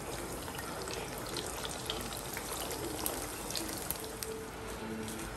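Hot oil sizzling in a frying pan as half-moon filled dough pastries fry, a steady hiss dotted with small irregular crackles.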